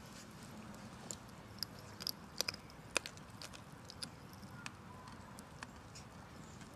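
Pop Rocks candy crackling in a mouth: faint, scattered little pops and clicks, a dozen or so spread over several seconds.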